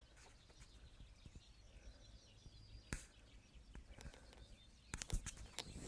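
Faint outdoor quiet with small birds chirping in the distance, and a few sharp clicks of the phone being handled, one about halfway and several near the end.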